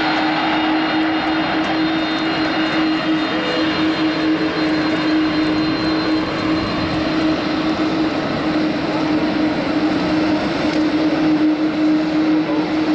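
Airbus A310-300's jet engines running at taxi power: a steady rush with a constant low hum, and a faint high whine that fades about halfway through.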